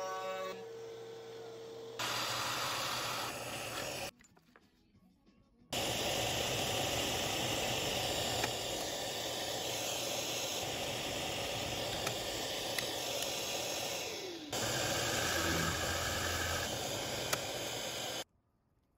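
Drill press boring into wood under the steady hiss of a dust-extraction hose held at the bit. The noise stops abruptly for a moment a few seconds in, and a whine falls in pitch about fourteen seconds in.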